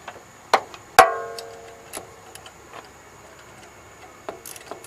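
Metal-on-metal knocks as a bolt is worked into an alternator mounting bracket. One loud clang about a second in rings on for about a second, and small clicks and a light rattle follow near the end.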